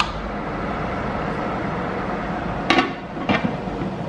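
Glass pan lid set down onto a large pan of simmering stew, clinking against the rim twice about three seconds in, over a steady hiss.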